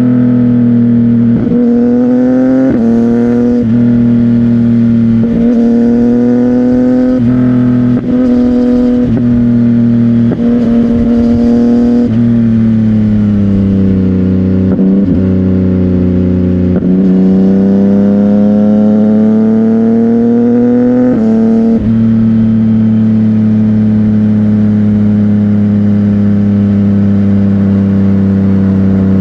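CFMOTO 675NK three-cylinder engine running through an aftermarket titanium exhaust under way. Its pitch climbs several times in quick succession, each climb broken off sharply as by a gear change. It eases off and pulls again midway, then holds a steady note from about two-thirds of the way in.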